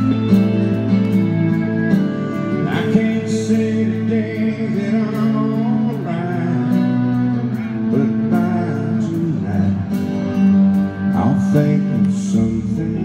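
Live country band playing, led by strummed acoustic guitar with lead guitar lines that bend in pitch.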